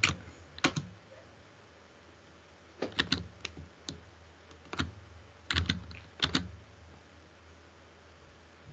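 Computer keyboard keys clicking in a few short, scattered bursts of keystrokes with pauses between, as a short message or link is typed and sent.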